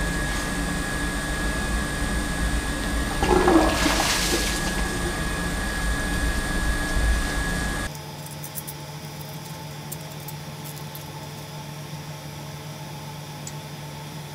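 Water rushing through a pipeline and out of an opened check-valve housing as the line is flushed: a loud, steady rush with a low rumble and a thin whistling tone. It cuts off sharply about eight seconds in, leaving a low steady hum and a few small clicks.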